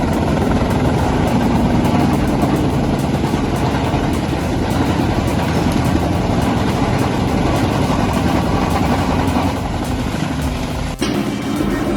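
PTH 700 drum wood chipper running under load as it chips logs: a loud, steady mechanical din of engine and chipping. The sound cuts off abruptly about eleven seconds in and something different starts.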